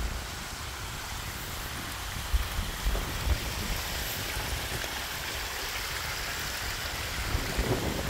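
Small mountain waterfall splashing down a rock face, a steady rush of falling water, with a few low thumps about two to three seconds in and near the end.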